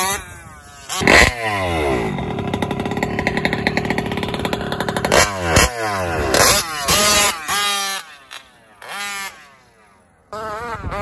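Taylor 46GT engine in an RC truck running at high revs, its pitch sweeping up and down as it is revved and let off. It holds a steady high note for a few seconds, drops much quieter about eight seconds in, then comes back loud near the end.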